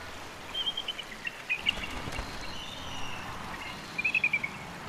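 Bald eagle calling: a quick run of high, chittering notes about four seconds in, after a few scattered high chirps, over a steady outdoor background hiss.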